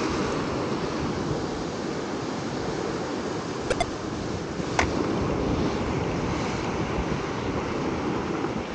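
Ocean surf surging and breaking against the sandstone rock ledge below, a steady wash of water with wind on the microphone. Two brief clicks about a second apart near the middle.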